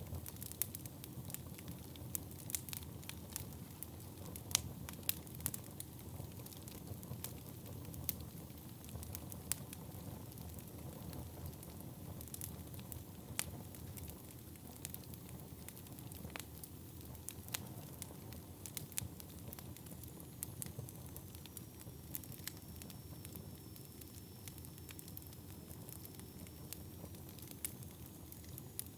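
Wood fire burning in a fireplace: a steady low rumble of flames with frequent sharp, irregular crackles and pops from the burning logs.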